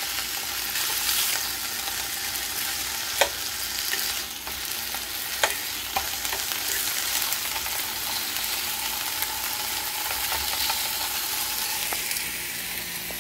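Thick slices of homemade smoked bacon sizzling steadily in a nonstick frying pan, with a few sharp clicks as the slices are turned with a fork.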